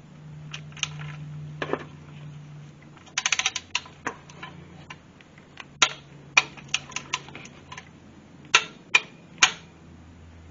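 Socket wrench ratchet clicking on the transmission drain plug as it is run back in: a quick run of clicks about three seconds in, then single sharp clicks scattered through.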